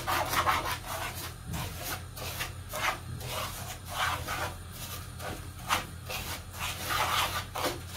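A wooden spoon scraping and stirring dry granulated sugar around a nonstick pan, in irregular strokes. The sugar is being heated to caramelise and is still dry grains, not yet melted.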